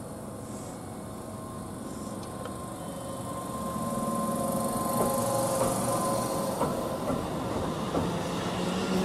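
Kintetsu 23000 series Ise-Shima Liner electric train pulling out of the station. A steady whine sounds as it gets under way, and its running rumble grows louder. From about halfway, its wheels click over the rail joints.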